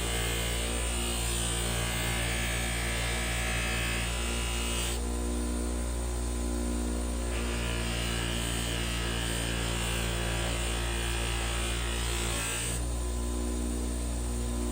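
Old bench grinder's motor running with a steady hum while a knife blade is worked against its polishing wheel. The hissing rub of the blade on the wheel drops away about five seconds in, comes back a couple of seconds later, and drops away again near the end.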